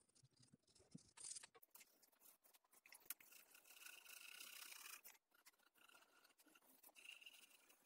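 Faint graphite pencil strokes scratching on paper while shading, with a steadier stretch of scribbling about three to five seconds in.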